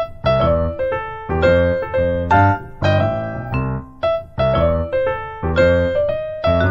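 Background piano music: a steady run of struck notes and chords, each dying away.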